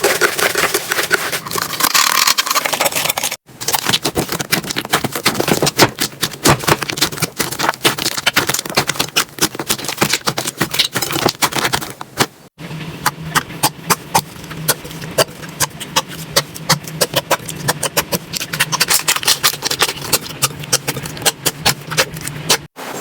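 Slime being squeezed and pressed by hand, giving dense, rapid crackling and popping clicks. The sound cuts out for an instant about three seconds in, again about twelve seconds in, and near the end, each time going on with a new stretch of the same sound.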